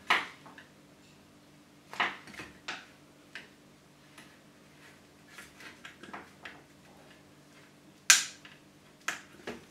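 Small hand tool prying and scraping at a metal RF shield can soldered on a router's circuit board: scattered sharp metallic clicks and scrapes, the loudest about eight seconds in.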